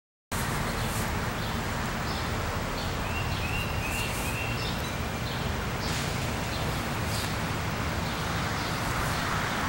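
Outdoor ambience picked up by a camera microphone: a steady hiss and low rumble, with a few short bird chirps about three to four seconds in and scattered faint clicks. It cuts in suddenly just after the start.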